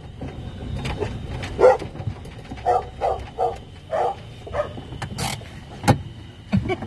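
Dogs barking, about six short barks over a few seconds, heard from inside a car over a low steady rumble, with a sharp click near the end.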